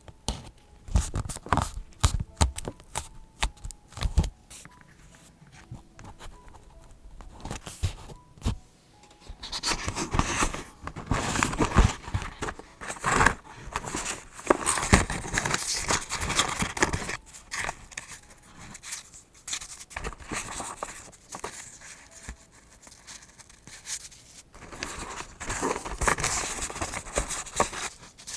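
Paper being handled for journaling: scattered sharp taps and clicks for the first several seconds, then long stretches of paper rustling, crinkling and tearing.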